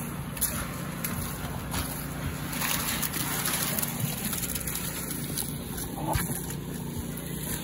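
Wet concrete sloshing and splashing as buckets are tipped onto a rebar roof slab and trowels scrape through it, with a few knocks of the buckets. A steady low engine hum runs underneath.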